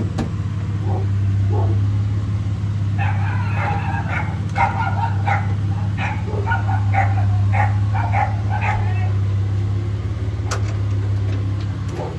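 Dog barking and yipping in a quick run of short, high barks for several seconds, starting about three seconds in, over a steady low hum.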